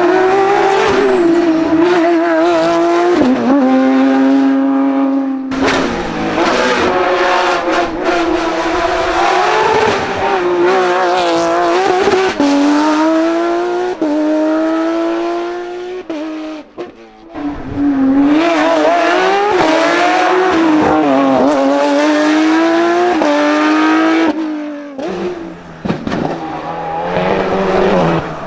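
Hillclimb race cars accelerating hard one after another, engines revving high and dropping back at each upshift. Near the middle the sound dips briefly before the next car comes through.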